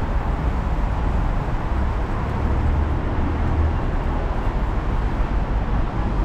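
Steady city road traffic noise: a continuous rumble of passing cars and scooters.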